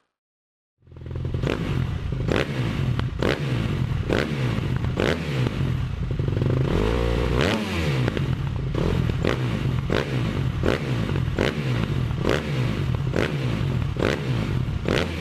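Outro audio with a motorcycle engine sound, cut in abruptly about a second in, with a steady strike about every three-quarters of a second and a drop and rise in pitch midway.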